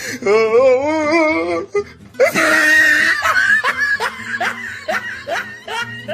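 Music with a wavering laughing voice, then a run of plucked notes, each fading quickly.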